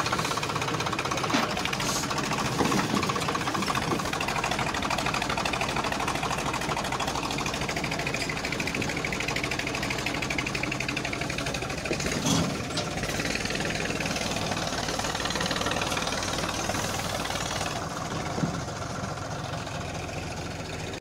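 Diesel tractor engine running steadily close by, with a brief thump about twelve seconds in.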